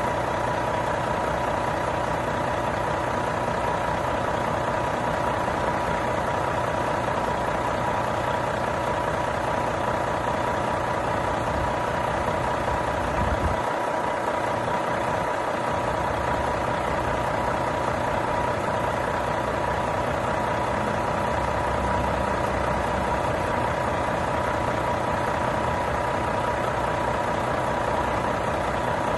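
Renault T480 truck's six-cylinder diesel engine idling steadily, with a constant whine over the engine note.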